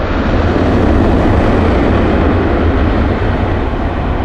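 Jet airliner's engines passing close by: loud, steady jet noise heavy in the low end, which swells to its peak about a second in and then eases slightly.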